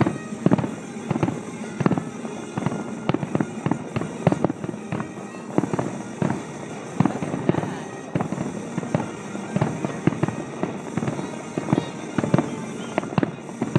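Aerial fireworks going off in quick succession, many bangs a second, some overlapping.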